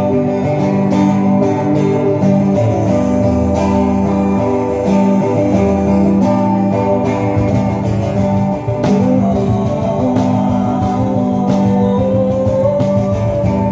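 Acoustic guitar strummed and played steadily through a stage sound system during a sound check.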